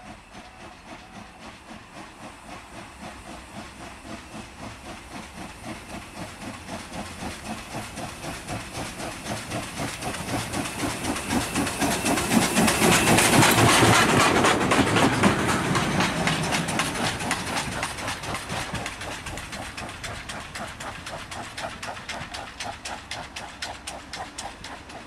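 Russian Class Ov steam locomotive working past under steam: a rapid, even beat of exhaust chuffs with hissing steam. It grows louder as the engine approaches, is loudest about halfway through as it passes, then fades as it moves away.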